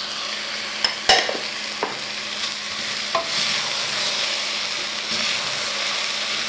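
Grated vegetables sizzling in a hot pot as they are stirred with a spoon, a steady hiss throughout. A few sharp clicks of the utensils knocking against the bowl and pot rim come in the first few seconds, the loudest about a second in.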